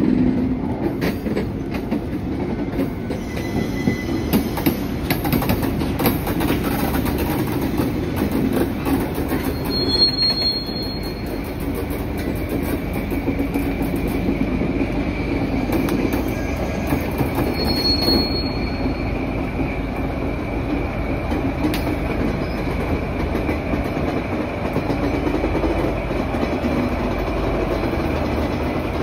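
Freight train rolling slowly, its wheels clicking over the rail joints, with two brief high wheel squeals about ten and eighteen seconds in.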